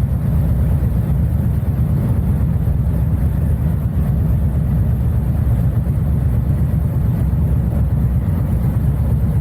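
Harley-Davidson Dyna's V-twin engine running on the move, a steady low rumble mixed with wind noise on the camera.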